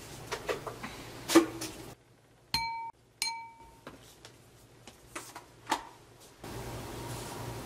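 Glass mixing bowl clinking as it is set down, loudest about a second and a half in. Then come two short bright pings about half a second apart, and a few light taps of a wooden spoon against the glass bowl as gochujang is scooped in.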